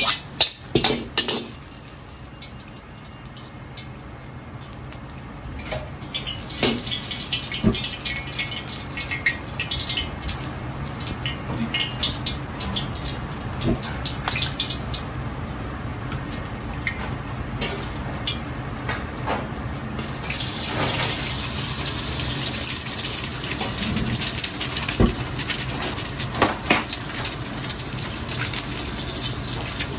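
Running water in a kitchen, a steady rushing hiss with a few sharp knocks of cookware; the rush gets louder and brighter about twenty seconds in.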